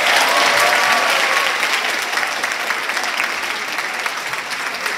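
A large seated audience clapping. The applause is loudest at the start and eases off slightly.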